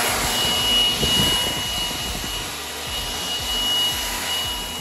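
Milwaukee M18 FUEL cordless leaf blower running, a steady high-pitched motor whine over rushing air as it blows dry leaves along the ground.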